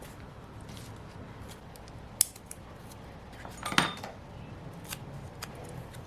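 Small stationery handling sounds from decorating a planner page: a sharp click about two seconds in, then a louder short clatter with a faint metallic ring shortly before four seconds, followed by a few light ticks.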